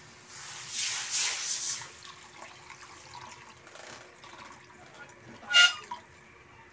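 Water being poured into the cooking pan, a pour lasting about a second and a half near the start. About five and a half seconds in there is one short, sharp clink.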